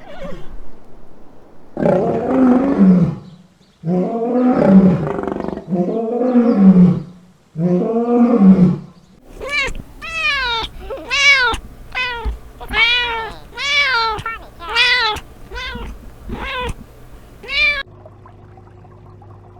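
Animal calls: four long, harsh, low calls, then a quick run of about nine short, higher calls, each rising and falling in pitch like a meow.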